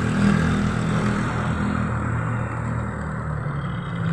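A vehicle engine idling steadily. A higher hiss over it fades out about two seconds in.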